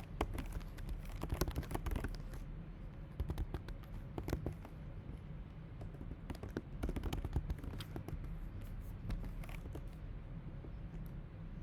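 Computer keyboard typing: irregular runs of short key clicks with pauses between, over a low steady hum.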